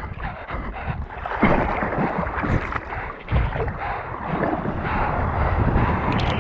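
Water splashing and sloshing right at a camera held at the water surface, with wind buffeting the microphone. The splashing gets louder about a second and a half in, and again about three and a half seconds in.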